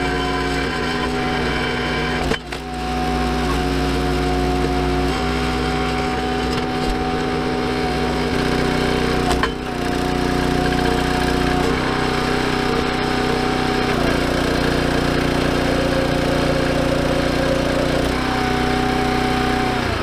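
Gas engine of a Ruggedmade hydraulic log splitter running steadily with a whine above it, its note dropping and recovering several times as the ram is loaded. Two sharp cracks come about two and nine seconds in.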